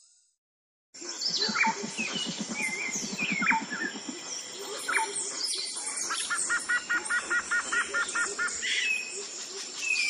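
Mixed chorus of small birds starting about a second in: many short chirps and quick falling whistles, and in the second half a fast run of repeated paired notes, about six a second, over a steady high-pitched hiss.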